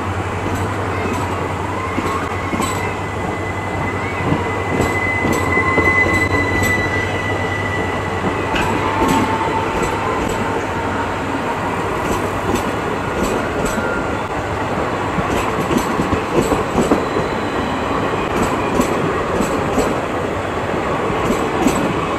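Indian Railways passenger coaches rolling past at speed: a steady rumble of wheels on rail with repeated rail-joint clicks that come more often in the second half. A thin wheel squeal rises about two seconds in and fades out around eight seconds.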